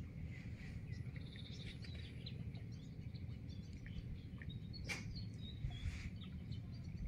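Small birds chirping in short scattered calls over a steady low rumble of outdoor noise, with one sharp click about five seconds in.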